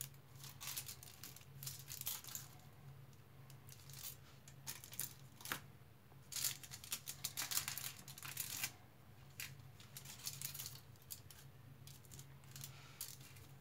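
Aluminium foil wrapper crinkling and short sharp clicks as a milk chocolate bar is snapped apart and its pieces pressed into place on the foil, over a low steady hum.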